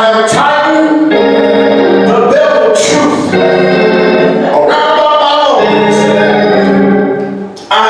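Organ playing loud sustained chords that change every second or so.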